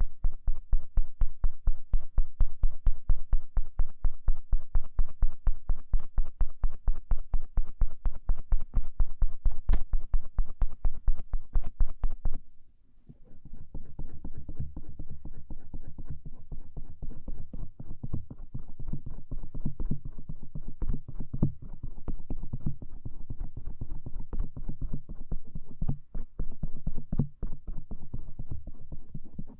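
Bamboo ear pick scraping and rubbing over the outer ear (auricle) of a binaural ASMR microphone in rapid, even strokes several times a second, each with a soft thud. The strokes break off briefly about halfway through, then resume more softly.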